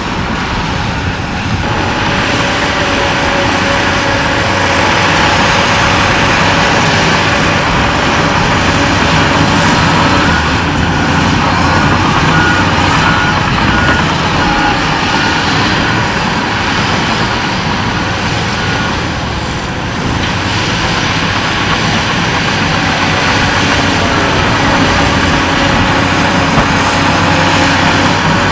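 Heavy diesel earthmoving machinery, a bulldozer and dump trucks, running steadily under load. Near the middle comes a short run of faint repeated beeps.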